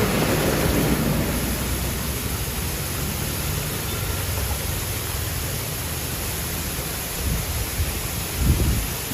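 Steady heavy rain with a low rumble underneath, and a few stronger low rumbles near the end.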